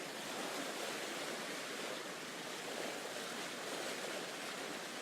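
Steady wash of sea surf, an even rushing with no separate splashes or breaks in it.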